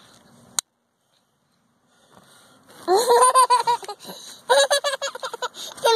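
Toddler girl giggling in two high-pitched bouts of quick pulsed laughter, starting about three seconds in, after a single sharp click near the start.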